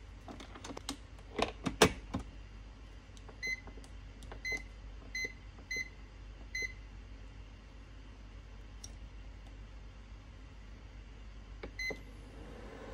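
Knocks and a loud clunk as the inner pot is set into the rice cooker and the lid is shut. Then the Panasonic rice cooker's control panel beeps at each button press: five short beeps about a second apart while the cooking course is selected, and one more near the end as the start button is pressed.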